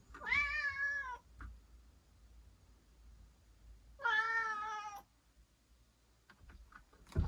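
Domestic cat meowing twice, each meow about a second long, with about three seconds between them.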